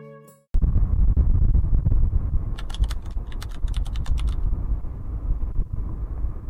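Acoustic guitar music fades out, then location sound cuts in suddenly: a heavy low rumble of outdoor noise with a quick run of about ten sharp clicks in the middle.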